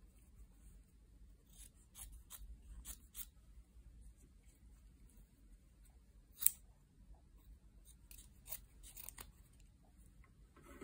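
Small scissors snipping through thin cloth: scattered quiet snips in small clusters, with one sharper click about halfway through.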